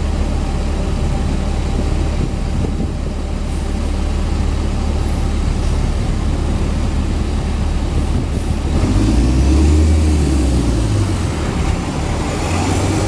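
Steady low rumble of a heavy engine idling, swelling louder for a couple of seconds about nine seconds in.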